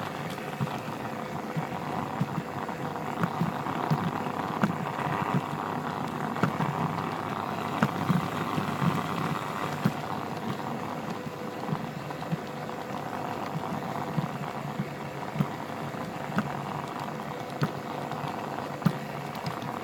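G-scale model train running along garden track, heard from on board: a steady rumble of wheels and motor with a faint hum, broken by irregular clicks and knocks as the wheels cross rail joints.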